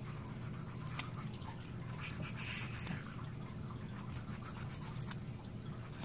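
Faint, irregular scraping of a nail file against the prong of a plastic side-release collar buckle, filing down the catch lip so the buckle will break away. A steady low hum runs underneath.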